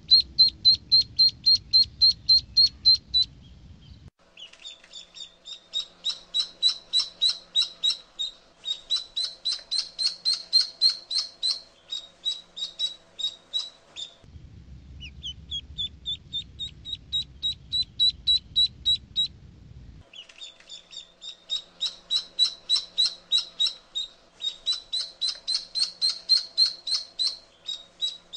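Duckling peeping: rapid, high-pitched peeps, about four or five a second, in runs of several seconds with short breaks, over a low background rumble in some stretches.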